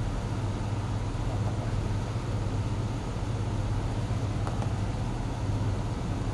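An engine idling: a steady low hum under an even background hiss.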